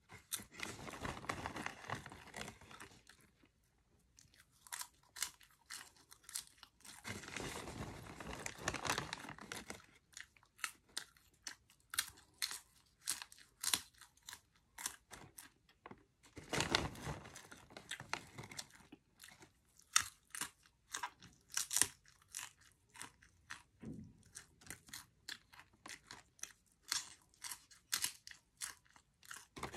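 Cheddar cheese popcorn being chewed close to the microphone: many quick sharp crunches, with a few longer stretches of denser crunching.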